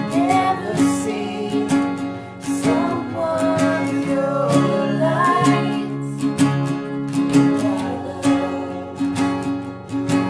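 Acoustic guitars strummed together with voices singing a folk-rock song.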